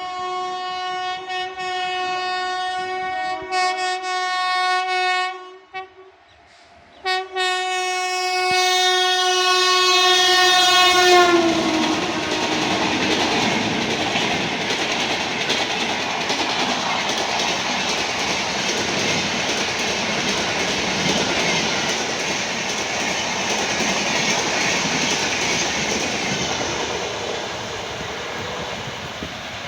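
Indian Railways locomotive horn sounding in long, loud blasts with a few short breaks and a pause of about a second around six seconds in. About eleven seconds in, the horn's pitch drops as the locomotive passes and the horn stops. For the rest of the time, the train's coaches rush past with a steady noise of wheels on the rails, which eases off near the end.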